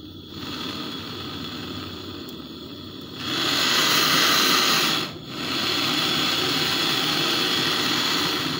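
Handheld refillable gas torch burning with a steady rushing hiss of flame. It gets louder about three seconds in, drops out for a moment about five seconds in, then runs steadily again.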